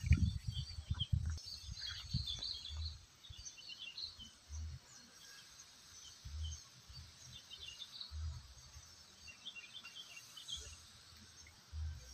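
Small birds chirping and twittering on and off, with low dull thumps on the microphone, heaviest in the first second or so and then coming about every two seconds.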